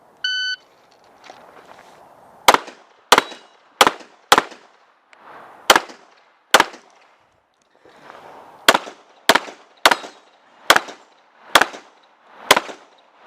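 IPSC shot-timer beep, one short steady tone, then a handgun firing twelve shots, mostly in quick doubles about half a second apart, with pauses of one to two seconds between groups as the shooter moves to new targets.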